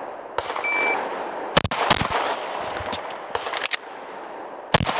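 A shot timer beeps, and about a second later a 9 mm CZ P-01 Omega pistol fires two quick shots. After a pause for the reload, two more shots come near the end.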